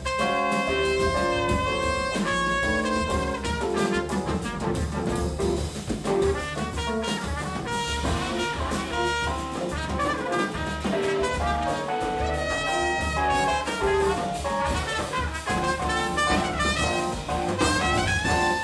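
Live jazz septet playing: trumpet out front over trombone, baritone saxophone, keys, double bass and two drum kits, with a held brass note near the end.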